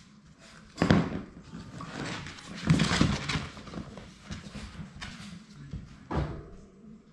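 Labrador retriever puppies scrambling and tumbling on a wooden floor and fleece blanket, paws scuffling, with a sharp thump about a second in, a burst of scuffling and knocks around three seconds in, and another thump a little after six seconds.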